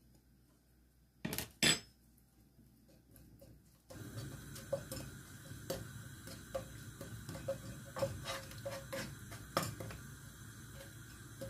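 Wooden spatula against a non-stick frying pan: two sharp knocks a little over a second in, then from about four seconds a run of small taps and scrapes as crushed garlic is broken up and stirred through oil, over a steady low background.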